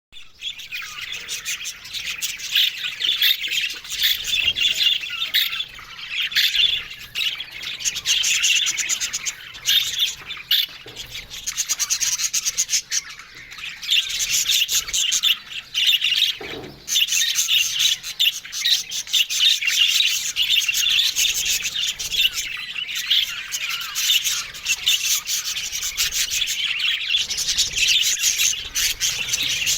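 Several budgerigars chattering and warbling continuously, a dense mix of rapid chirps and squawks, with a brief lull a little past the middle.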